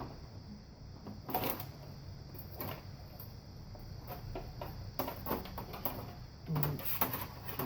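Scattered clicks and knocks of metal and plastic computer-case parts being handled and pulled apart by hand, at uneven intervals.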